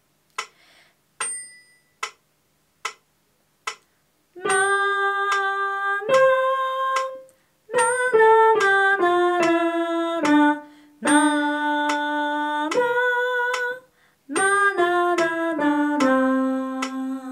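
A woman singing a short melody back on a neutral syllable over a metronome. The metronome ticks alone for about four seconds before she comes in. She sings in short phrases of held, even notes stepping mostly downward and ends on a long low note, the way a melody is repeated in a conservatory aural test.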